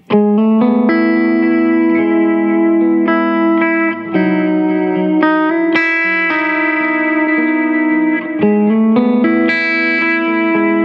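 Clean electric guitar played back through a guitar amp as close-miked by a Shure SM57, picked notes and chords ringing out one into the next with a very slight reverb.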